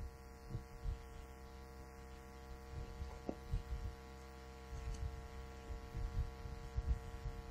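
Steady electrical hum on the recording, a stack of even tones, with scattered soft low bumps and a few faint ticks.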